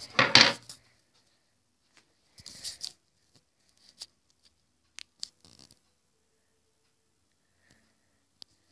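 Rustling and handling noise: a loud burst at the start and a shorter one about two and a half seconds in, then a few separate sharp clicks.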